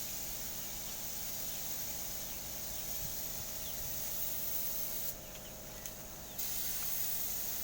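Paint spraying onto an engine with a steady hiss over a faint steady hum. The hiss stops about five seconds in and starts again just over a second later.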